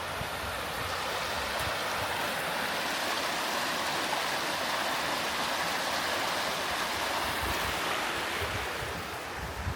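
A steady rushing noise that swells through the middle and eases near the end.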